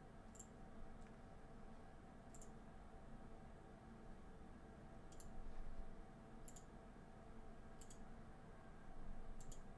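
Faint computer mouse clicks, about six spread a second or so apart, over a low steady background hum.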